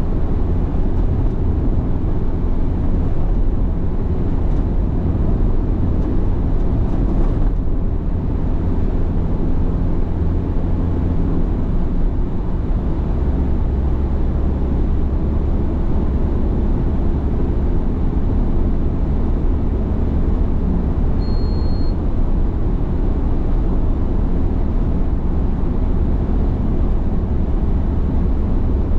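A car being driven along a road, with a steady low rumble of engine and tyres. The low hum shifts slightly about halfway through, and a short high beep sounds about three-quarters of the way in.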